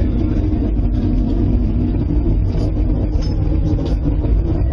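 Strong wind as a loud, steady low rumble, which those hearing it take for a tornado getting close.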